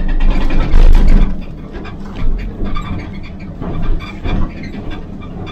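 Excavator-mounted hydraulic breaker hammering concrete, a rapid run of hard blows over the excavator's running engine, heard from inside the cab. The hammering is loudest in the first second or so, then goes on in shorter bursts.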